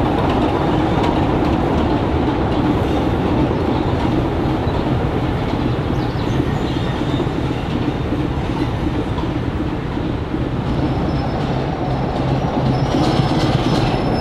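Diesel locomotive engine running steadily, with a train moving through the station. In the last few seconds a faint high squeal comes in, typical of wheels or brakes.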